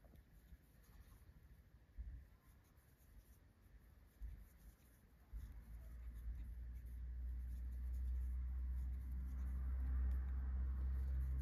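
Faint rubbing and scratching of a crochet hook drawing yarn through stitches, with a couple of soft knocks about two and four seconds in. About five seconds in, a low steady hum starts and swells to become the loudest sound.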